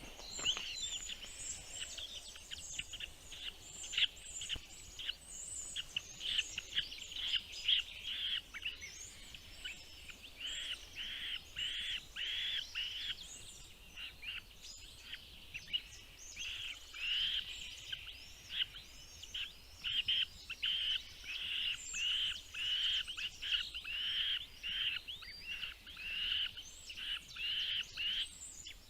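Birds chirping: a long run of short, arching high calls about two a second, with fainter, higher chirps over them.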